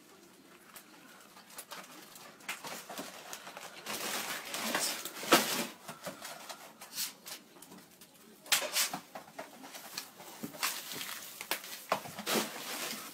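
Grocery bags and packages rustling and crinkling in irregular bursts as they are carried and handled by dogs.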